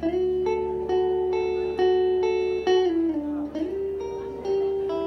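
Electric guitar played through an amplifier in an instrumental passage: notes struck about twice a second, with the pitch sliding down and back up about three seconds in.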